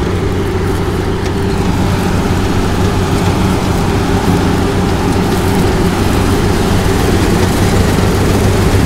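New Holland combine harvester running steadily under load, a constant engine drone with a dense rushing hiss from its MacDon flex draper header cutting and feeding the dry bean crop.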